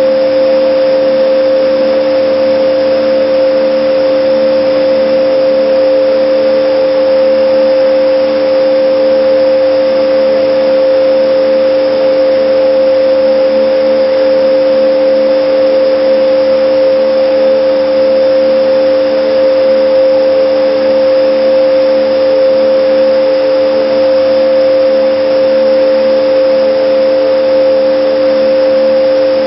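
Shake table machinery running: a loud, steady hum with two held tones over a hiss, unchanging throughout.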